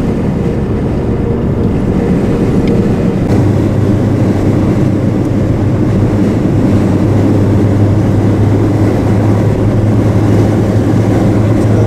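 Car engine and road noise heard from inside the cabin while driving at a steady speed. A low steady hum strengthens about three seconds in.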